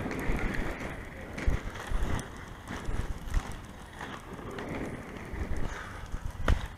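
Inline skate wheels rolling over rough asphalt: a steady grinding rumble broken by irregular bumps and knocks, with a sharp knock near the end, and wind on the microphone.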